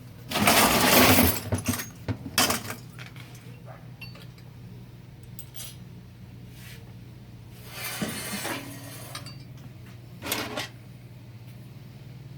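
Metal transmission parts clattering and clinking as they are handled on a workbench, with a loud clatter about half a second in and shorter clinks and knocks later. A steady low hum runs underneath.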